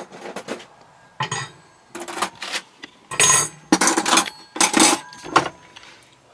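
Kitchenware clattering: dishes, pots and cutlery knocking and clinking together in a quick, irregular run, some strikes ringing briefly.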